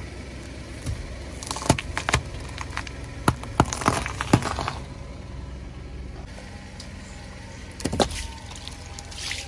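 A car tyre rolling slowly over objects on asphalt and crushing them. There is a run of sharp cracks and crunches between about one and five seconds in, as it goes over green stalks, and a short burst of crackling near eight seconds as it flattens a juice carton. A low engine rumble runs underneath.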